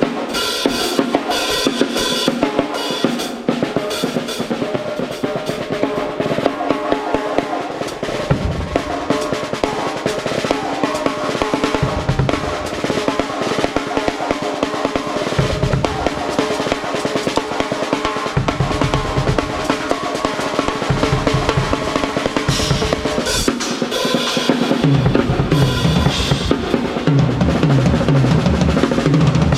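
Pearl Short Fuse compact drum kit played continuously, with rapid snare and tom strokes and kick drum, picked up by a GoPro Hero 12's built-in microphone. Cymbals ring out near the start and again about three-quarters of the way through, and the kick drum comes in heavily about eight seconds in and is strongest near the end.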